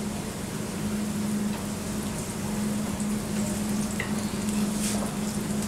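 Grated-potato pancake batter frying in hot oil in a cast-iron pan: a steady sizzle and crackle, with a steady low hum underneath.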